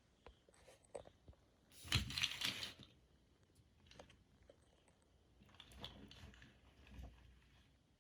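LEGO bricks being handled: small plastic pieces clicking and clattering, with a longer rustling clatter about two seconds in and lighter clicks later.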